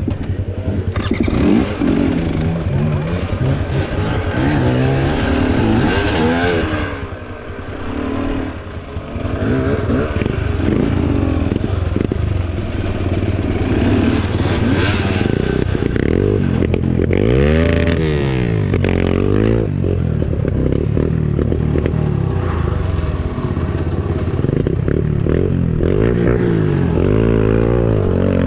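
Enduro dirt bike engine being ridden hard, its revs rising and falling again and again as the throttle is worked. It eases off briefly about seven seconds in, then picks up again.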